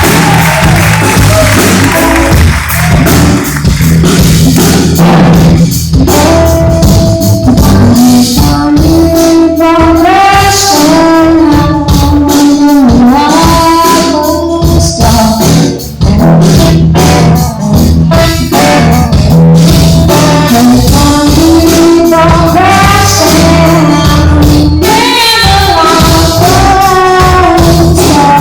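A live band playing a song with a sung lead melody over a steady beat.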